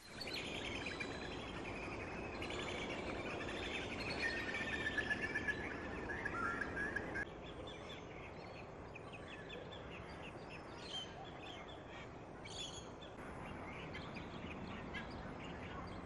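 Wild birds chirping and calling over a steady outdoor background hiss, with a few short held whistles among the chirps. About seven seconds in the ambience changes abruptly: the background drops and the chirps become sparser and higher.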